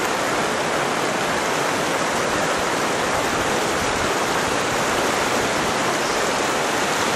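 Creek water rushing steadily beneath fallen logs, a continuous even rush.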